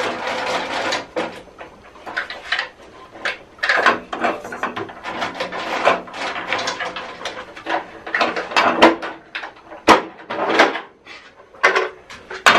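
Hands working on the switched-off Güde GADH 200 jointer-planer's housing and parts: irregular knocks, rattles and scraping, with one sharp click about ten seconds in.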